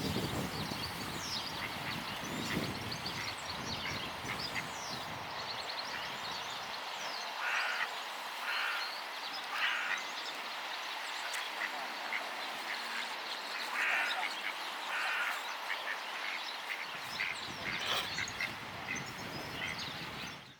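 Swan giving short, rough cough-like calls, three about a second apart and then two more a few seconds later. The swan seems to be coughing, a sign that she is unwell.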